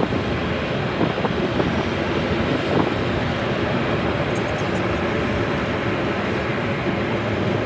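Steady road noise inside a moving car: engine and tyre rumble with a few faint knocks.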